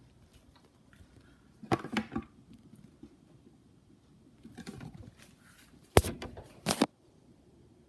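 Handling noise of a camera moving close against a wooden drawer: scattered rustles, with a quick pair of sharp knocks about six seconds in as the view swings around.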